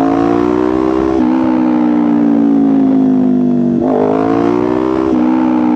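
Kawasaki Ninja 500's parallel-twin engine running under way. Its note sinks slowly and steps in pitch a few times as the revs change.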